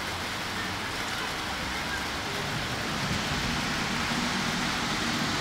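Steady outdoor rushing hiss with no distinct events, and faint distant voices.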